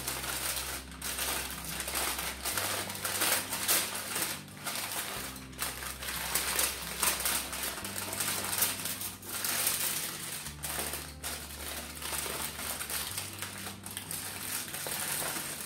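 Aluminium foil crinkling and crackling as it is folded and crimped shut by hand into a packet, in a rapid irregular run of small crackles.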